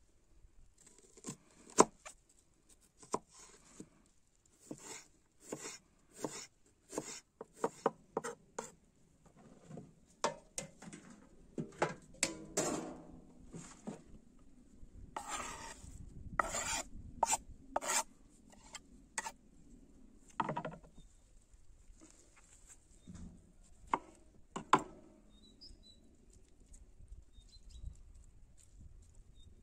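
Irregular knife strokes and scraping on a wooden board, the sounds of food being prepared by hand, with short sharp knocks mixed with longer rasping scrapes, busiest in the middle.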